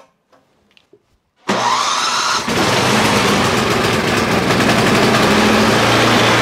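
Tecumseh 10 hp Snow King single-cylinder snowblower engine being started with its new 120 V electric starter: about a second and a half in, the starter cranks with a rising whine, then the engine catches about a second later and runs steadily at a constant pitch.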